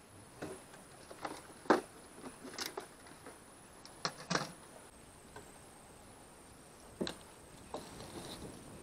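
Scattered knocks and rattles of fishing gear being handled in a small boat, with a sharp knock about two seconds in the loudest and a pair of clatters about four seconds in.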